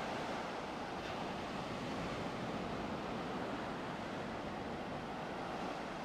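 Steady wash of ocean surf on a beach, an even rushing noise with no distinct breaks.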